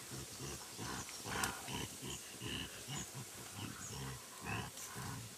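Young mountain gorillas wrestling in play, giving a rapid run of short, low vocal sounds.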